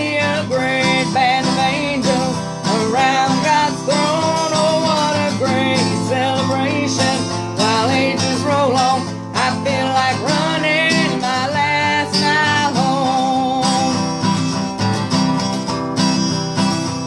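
Acoustic guitar playing a country gospel tune between verses, with a wavering melody line held over the chords.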